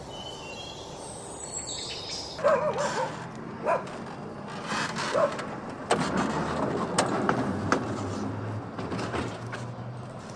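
Small Kuli narrow-gauge locomotive running and moving along the track: sharp metal clanks and knocks, with a low steady engine drone in the second half. High chirps in the first two seconds.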